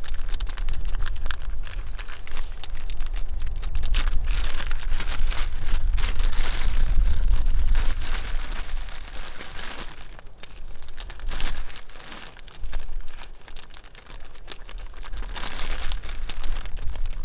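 A foil pouch and the clear plastic bag of pipe tobacco inside it crinkling and rustling as they are handled and opened close to the microphone. A low rumble runs under the first half or so.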